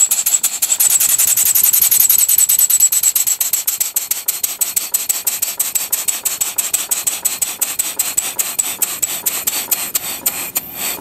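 A large model oscillating steam engine running steadily at low pressure, each stroke giving a hissing exhaust puff in a rapid, even rhythm. It is louder for the first few seconds, then settles a little quieter.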